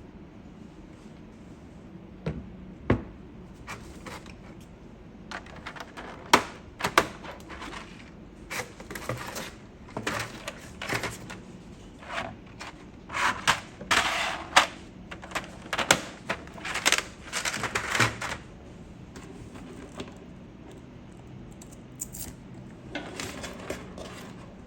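Keys and keycaps of a QK80 MK2 mechanical keyboard being pressed and clacking, in irregular runs of sharp clicks. The clicks are densest in the middle and come back briefly near the end.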